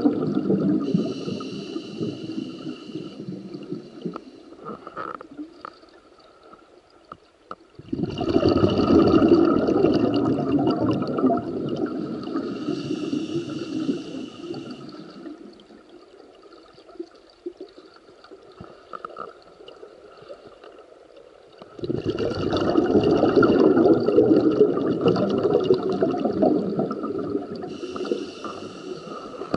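Scuba diver's breathing heard underwater through a regulator. Twice the exhaled bubbles start with a sudden rush and fade over several seconds, and short hisses of inhalation come between them.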